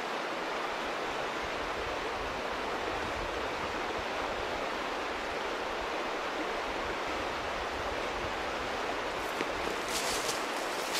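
River flowing steadily, a constant even rush of water. Near the end, a crackle of brush and leaves rustling.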